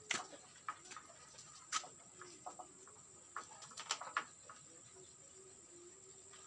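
Irregular light taps and clicks on a goat shed's roof, the strange sound of unknown origin that was heard from inside the shed, over a faint steady high-pitched tone.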